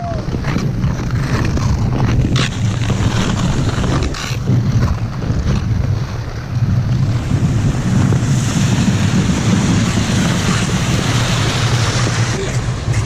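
Wind buffeting the microphone during skating, with the scrape and hiss of ice-skate blades on the ice. The blade hiss grows stronger about halfway through.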